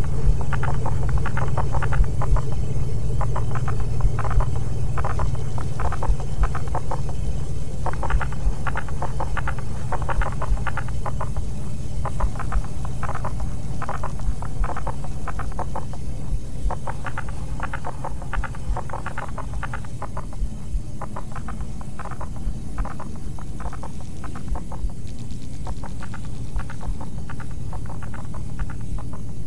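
Experimental electronic music built entirely from a sampled metal ring scraping across a radiator: a steady low drone under rapid, stuttering scratchy clicks.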